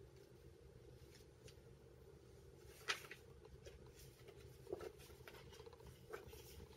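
Near silence with a few soft paper rustles and taps as junk journal pages are handled and turned, the loudest about three seconds in.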